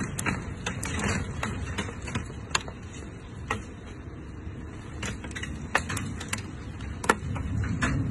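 Hailstones striking hard surfaces: scattered sharp clicks at irregular intervals, a few a second, over a steady low rumble of the storm.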